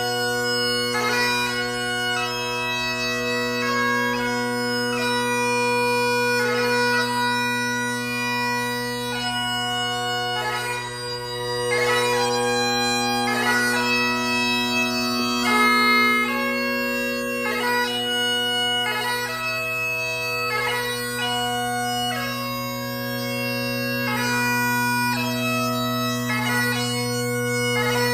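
Highland bagpipes played solo: the steady drone holds one low note while the chanter plays a quick-moving melody above it.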